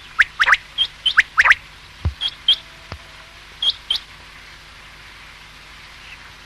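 Common quail calling: short, sharp whistled notes in quick pairs and triplets, stopping about four seconds in. Two brief low thuds fall among the calls, around two and three seconds in.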